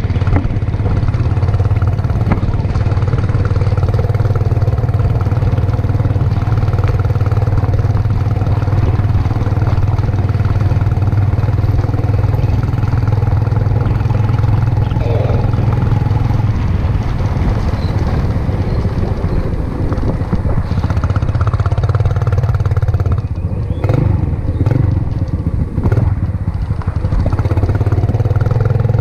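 Yamaha Enticer 125's single-cylinder four-stroke engine running at a steady pace while the bike is ridden, heard close from the handlebar. About three quarters of the way through the engine note dips briefly, with a few knocks.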